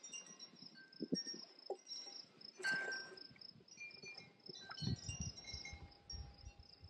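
Garden ambience: scattered ringing notes of different pitches over a steady high insect drone, with a few low gusts of wind buffeting the microphone.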